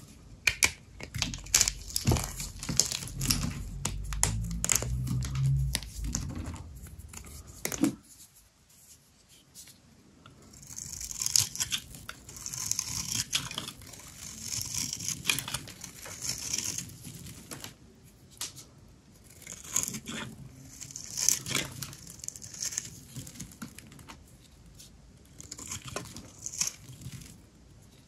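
Dry soap being cut and crumbled by hand: dense crisp crackling and crunching, in a steady run for the first several seconds, then in separate bursts after a short lull.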